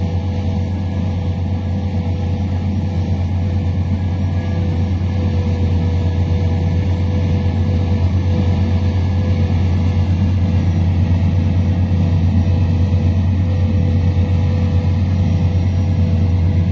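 Case International 7400 silage harvester running steadily: a deep, even engine drone with a thin steady hum above it.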